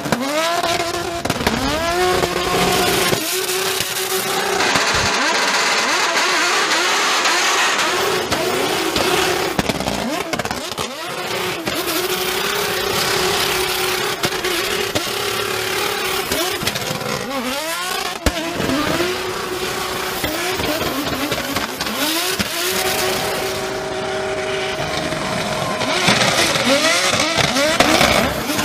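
BMW E46 drift car's engine revving hard, its pitch repeatedly rising and falling, while the rear tyres squeal and spin through drifts and a burnout.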